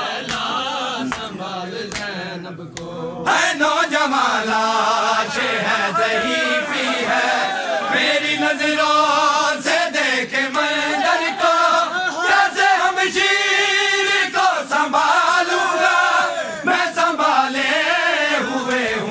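A large group of men chanting an Urdu noha (mourning lament) in unison behind a lead reciter, with chest-beating (matam) slaps about once a second. The chanting drops away briefly near the 3-second mark, then comes back louder.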